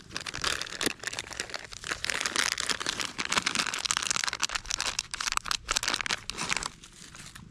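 Footsteps crunching and rustling through dry autumn leaf litter, a dense irregular crackle that dies away near the end.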